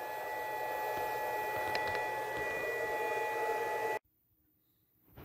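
Steady room hiss with a faint, steady high-pitched electrical whine and a couple of faint clicks, cutting abruptly to dead silence about four seconds in.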